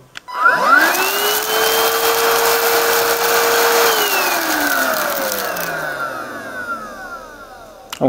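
PRETTYCARE W200 180-watt cordless stick vacuum switched on: its motor whines up to speed within about half a second and runs steadily with a rush of air for about three seconds. It is then switched off and winds down slowly, the whine falling in pitch until it fades near the end.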